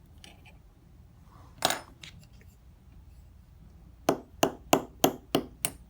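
Light metallic taps of a small watchmaker's hammer, knocking a friction ball bearing out of a Swiss automatic movement. One tap comes about a second and a half in, then six quick taps in a row, roughly four a second, near the end.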